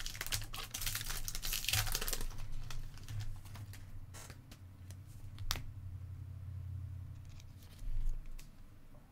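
Foil wrapper of a Panini Select basketball card pack being torn open and crinkled for about two seconds, then a couple of sharp clicks as the cards are handled, over a steady low hum.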